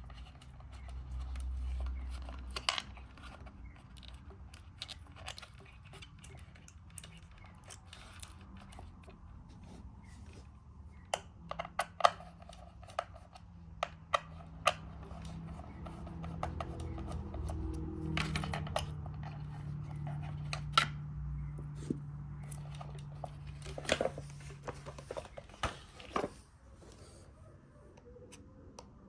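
Scattered clicks, taps and knocks of plastic casing parts and tools being handled while a Dyson tower fan is dismantled. A low steady hum joins in for several seconds in the second half.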